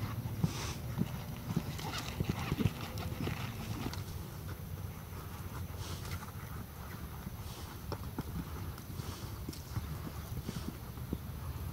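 Horse's hoofbeats at the canter on a sandy dirt arena: a run of dull strikes with a rolling rhythm.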